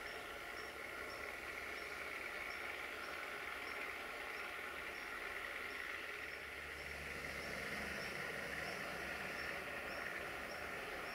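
Quiet rail-yard ambience: a steady high hiss with a short high chirp repeating about two to three times a second, joined about halfway through by a low engine hum, as of a diesel idling.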